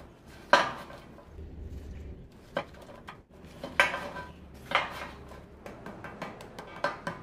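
Lead-acid battery plates and separator sheets being stacked and knocked square on a metal tabletop: a series of sharp, hard clacks about a second apart, with lighter ticks of the plates shuffling between them.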